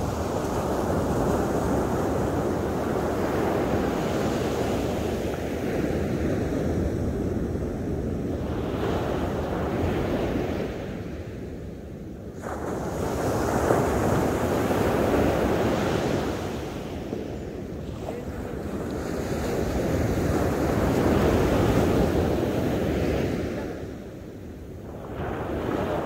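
Ocean surf breaking on a sandy beach: a continuous rushing wash of waves that swells and eases as each wave breaks and draws back, with brief lulls about every six seconds in the second half.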